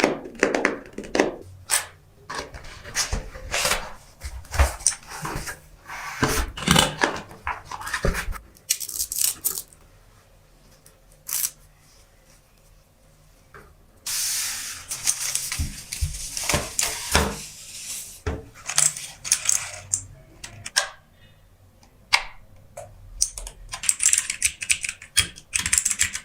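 Typing on an Aigo A100 mechanical keyboard: runs of quick key clicks with a pause about halfway through, and a few seconds of rustling noise soon after the pause.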